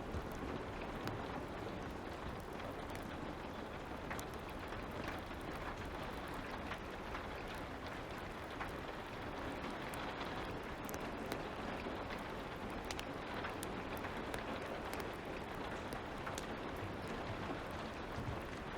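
Light rain falling in a steady hiss, with scattered sharp pops and crackles of a wood fire.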